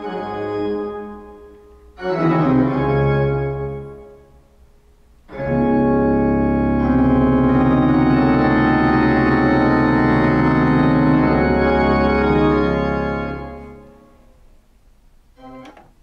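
Organ music from a CD played on a Pioneer PD-4050 CD player through loudspeakers: a short chord, a second chord, then a long held chord that dies away about two seconds before the end. It plays cleanly, with no audible distortion.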